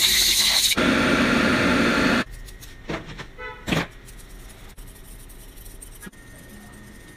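Tap water running in a steady rushing stream onto a small animal in a sink, stopping abruptly about two seconds in. After that it is much quieter, with a few faint clicks.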